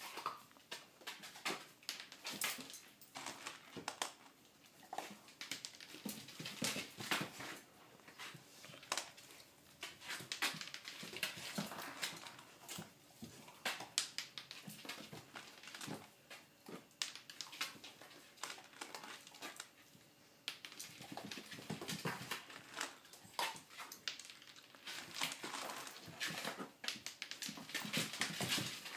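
Basset hound puppy eating from his food bowl on a hard floor: irregular clicks, knocks and chewing noises throughout.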